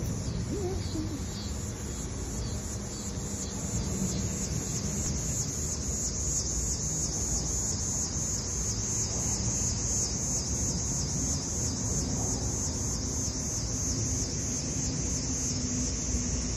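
A chorus of insects calling in a high-pitched, evenly pulsing buzz, several pulses a second, over a steady low background rumble.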